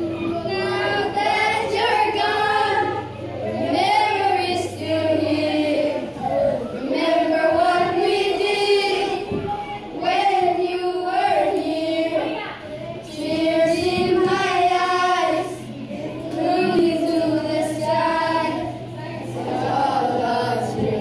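A group of children singing together in unison, in phrases of about two seconds each.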